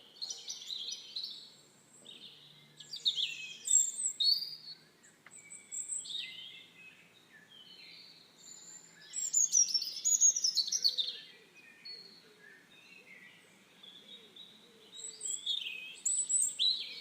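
Bird chirping and twittering: clusters of short, quick, high calls, many falling in pitch, with brief pauses between them.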